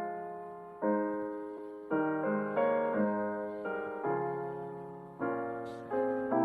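Slow, gentle piano music: chords struck about once a second, each ringing and fading away before the next.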